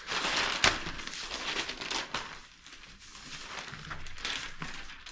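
Newspaper sheets rustling and crinkling as they are unfolded and spread flat over a table, louder in the first two seconds, with a sharp click about two-thirds of a second in.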